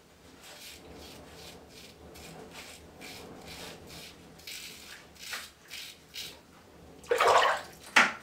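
Mongoose Alumigoose aluminium safety razor scraping through lather and stubble on the neck, in short repeated strokes about three a second, shaving with the grain. Near the end come a louder splash of water and a few sharp knocks.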